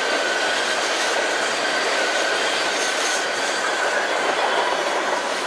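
A loaded unit train of DOT-111 tank cars rolling past, a steady rumble of steel wheels on rail with a thin, high wheel squeal running through it. The rear locomotive goes by near the end.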